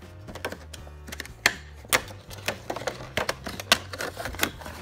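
Plastic-windowed cardboard toy box being handled and opened: irregular clicks, taps and plastic snaps, the sharpest about a second and a half in. Background music plays underneath.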